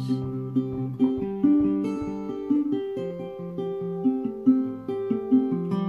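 Acoustic guitar played on its own, separate picked notes of an arpeggiated chord pattern ringing into one another.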